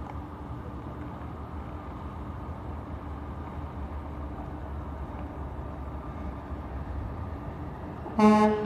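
Semi-truck diesel engine running steadily at low speed as the tractor-trailer reverses. Near the end comes one short, loud horn blast.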